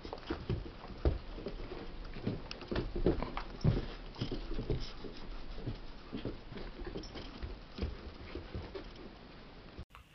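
A beagle puppy's paws on carpet as it runs and spins: a quick, irregular run of soft footfalls and thumps.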